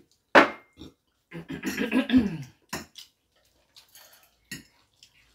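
A drinking glass set down on the table with a short, ringing clink, then slurping and chewing of spaghetti mixed with a voiced hum, and small clicks of forks on plates.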